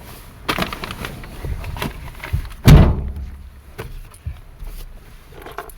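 A car door is shut with a loud slam about three seconds in, with smaller knocks and handling thuds around it.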